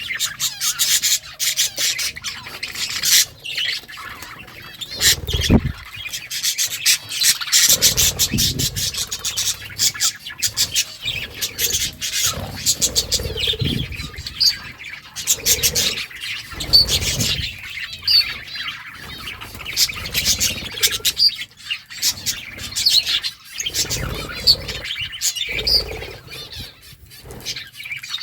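Budgerigars chirping and chattering in short high calls, over a dense run of sharp clicks.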